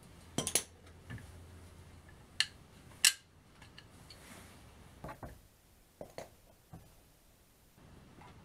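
Sharp metallic clicks and clinks from an ATV's drum-brake backing plate and its parts being handled and worked off the wheel hub: a handful of separate knocks, the loudest about three seconds in.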